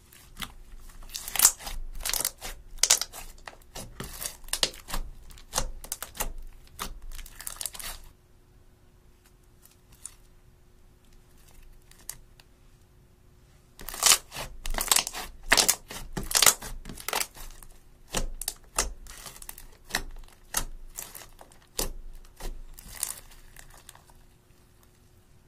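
Glitter slime being stretched, pulled and pressed by hand, giving off runs of many small sticky clicks and pops. There are two busy stretches of several seconds each, with a quiet pause of about six seconds in the middle.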